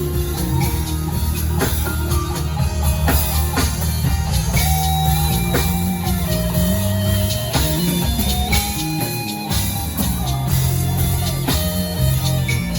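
Live band playing with drum kit, bass and guitar: steady bass notes under held melody notes, with regular drum hits.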